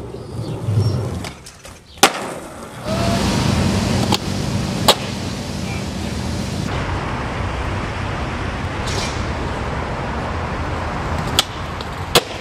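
Skateboard sounds: the wheels rolling on concrete in a steady rumble, broken by sharp clacks of the board hitting the ground. Near the end a tail pop, then a landing clack under a second later.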